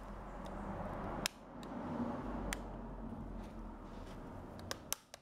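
Back cover of a Lenovo S898T phone being prised off by hand: a steady scraping and rubbing at the case edge, broken by sharp clicks as the cover's clips let go, one about a second in, one midway and two close together near the end.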